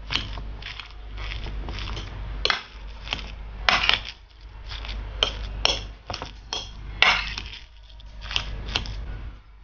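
Metal fork mashing boiled potatoes on a ceramic platter: repeated clinks and scrapes of the tines against the plate, about one or two a second, irregular in strength.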